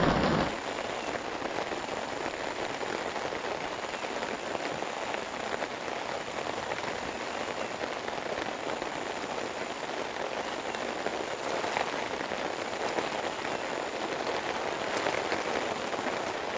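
Steady heavy rain falling on the rainforest and on a tarp shelter overhead.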